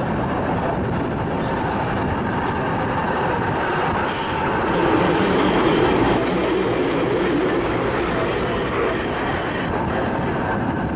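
Tram running along its track, heard from inside the car: a steady rolling rumble of steel wheels on rail, louder for a couple of seconds in the middle. The wheels squeal high-pitched twice, briefly about four seconds in and again near the end.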